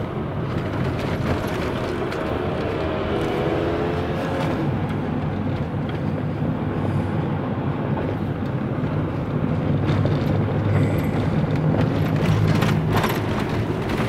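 Car engine and road noise heard from inside the cabin while driving, a steady low hum.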